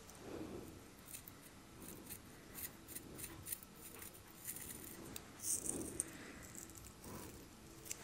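Long acrylic fingernails scratching and picking through beard stubble on a face: soft rustling with a scatter of small clicks and taps, loudest about five and a half seconds in.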